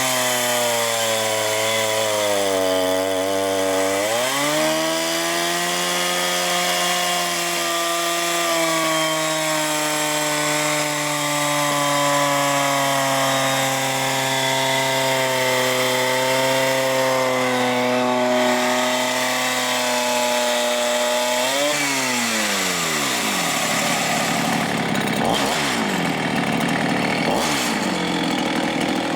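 Two-stroke chainsaw engine running hard against a disc brake dynamometer load. Its pitch sags in the first few seconds, picks back up and holds steady, then after a brief rise falls away steeply about three-quarters of the way through.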